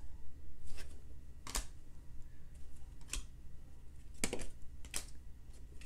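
Glossy baseball cards being flipped through by hand. Each card slid off the stack gives a short, crisp flick, about five in a few seconds, at an uneven pace.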